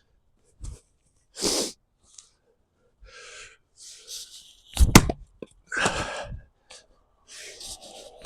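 Axe blows into a log while splitting firewood: one sharp, loud crack of the blade striking wood about five seconds in and another at the end, between forceful exhales from the effort of swinging.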